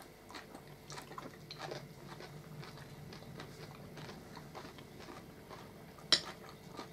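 Two people eating: faint chewing and small mouth sounds with light clicks of forks and spoons on plates, and one sharper click near the end.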